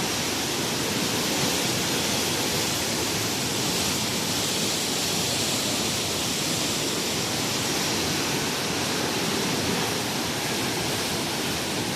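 Water rushing and churning through a canal lock as its water level is changed, a steady, even rush with no breaks.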